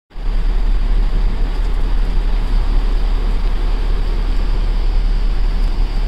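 Strong wind buffeting the microphone in a steady, deep rumble, over the continuous rush of a rough sea and the ship's churning wake.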